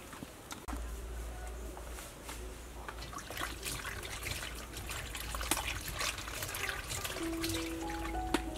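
Water sloshing and splashing in a stainless steel bowl as hands work pieces of banana in it, with many small drips and splashes. A few soft music notes come in near the end.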